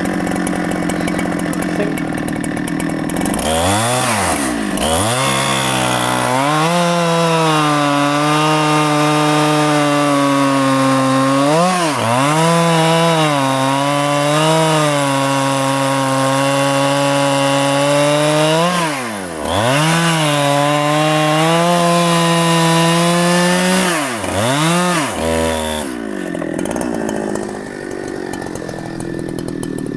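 Chainsaw idling, then revved up a few seconds in and held at full throttle while cutting through rain tree (trembesi) wood. Its revs dip and recover briefly several times, and it eases off near the end.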